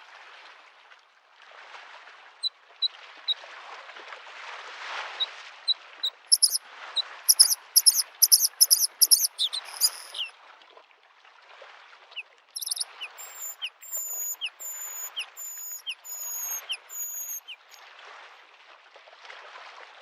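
Small waves lapping at a lake shore in repeated washes every couple of seconds, while a bluethroat sings. Its song has a few soft high notes, then a run of loud, sharp repeated notes about a third of the way in, then a row of short down-slurred whistles.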